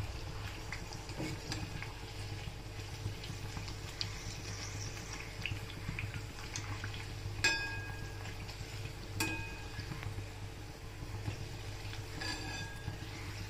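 Kadakani dough shapes deep-frying in hot oil with a steady faint sizzle. A metal utensil strikes the pan with two ringing clinks a little past halfway and a softer one near the end.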